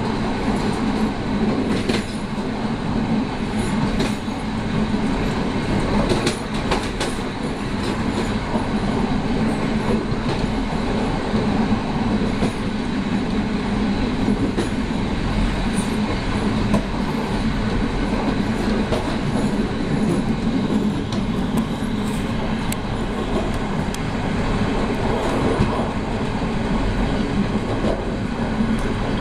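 SU42 diesel locomotive hauling a train at speed, heard from the cab: a steady engine drone and rail rumble with occasional clicks of the wheels over rail joints.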